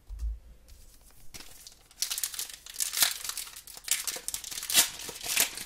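Foil Pokémon booster pack wrapper crinkling and crackling in the hands as it is torn open, in a quick run of crackles from about two seconds in. A low thump comes right at the start.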